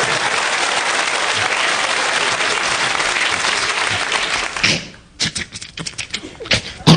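Studio audience applauding. The applause breaks off sharply about five seconds in, leaving a few scattered claps.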